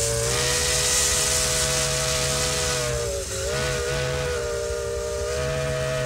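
Steam locomotive chime whistle held in one continuous chord over a loud hiss of steam; its pitch dips briefly about three seconds in, then recovers.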